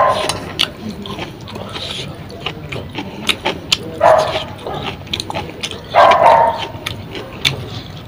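Close-up eating by hand: rice and fish curry mixed on a plate and pushed into the mouth, with many sharp wet smacking and chewing clicks. Louder short mid-pitched bursts come about four and about six seconds in.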